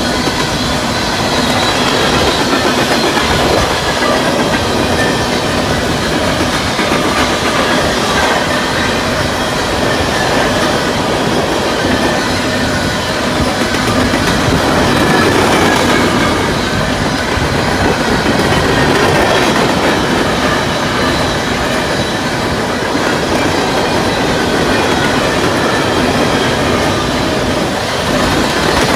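Coal train's cars rolling past at speed: a loud, steady rumble of steel wheels on rail, with thin, faint squealing tones riding over it.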